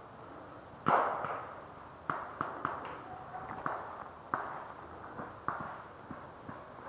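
Paintball markers firing: one loud, sharp shot about a second in, then a string of quieter pops at uneven intervals.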